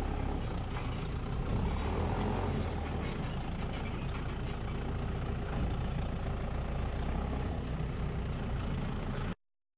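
Doosan DX200 tracked excavator's diesel engine running steadily as the machine works its ditch-cleaning bucket. The sound cuts off abruptly near the end.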